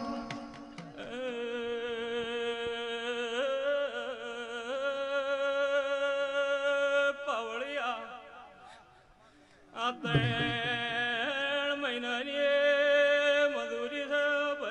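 A man singing a Gujarati devotional dhun into a microphone, holding long, ornamented notes with a steady low tone beneath. The sound drops out briefly about nine seconds in, then the singing resumes.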